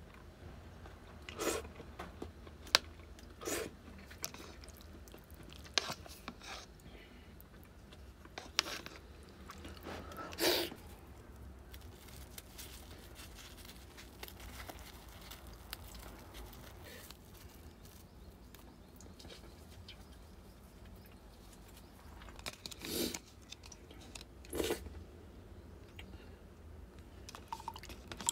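A person eating, with chewing and a handful of short, sharp sounds scattered through it, over a low steady hum.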